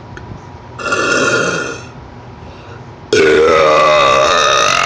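A person burping deliberately, twice: a short burp about a second in, then a longer, louder one starting about three seconds in.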